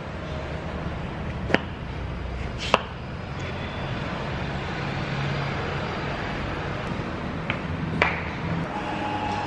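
A steady low background rumble with four short, sharp taps or clicks: two in the first three seconds and two near the end.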